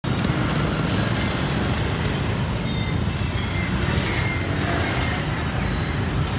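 Steady street traffic: motorbikes and cars running past on the road, a continuous engine and tyre rumble.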